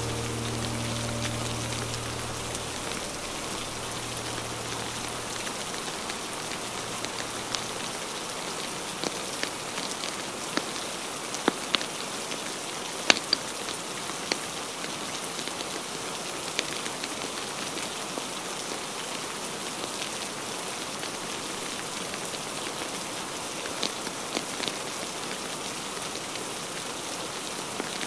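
Steady rain falling, with scattered sharp pops and crackles from logs burning in a fireplace, a cluster of louder pops about ten to thirteen seconds in. The last notes of soft background music fade out in the first few seconds.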